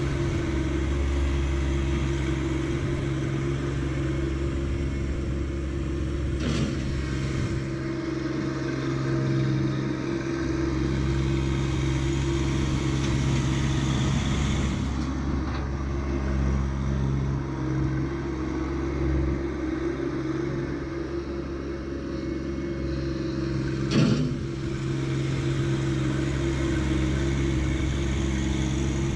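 John Deere 1025R subcompact tractor's three-cylinder diesel engine running steadily, with two short metallic knocks, the louder one near the end.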